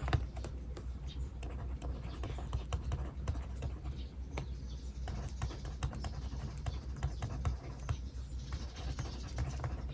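Writing by hand on paper: a quick, irregular run of small ticks and scratches from the writing tip, over a steady low hum.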